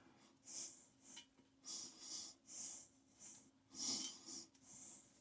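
Faint short scraping strokes, about two a second, as nuts are spun by hand down the threaded closet bolts to snug the toilet onto its flange.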